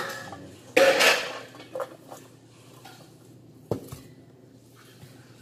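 A stainless steel bowl being handled, clattering and scraping. The loudest part is a rattle about a second in, followed by a few light clicks and a sharp knock near four seconds.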